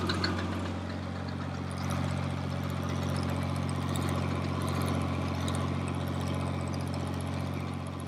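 Farm tractor engine running at a steady speed, heard close up from the driver's seat as a constant, even engine hum.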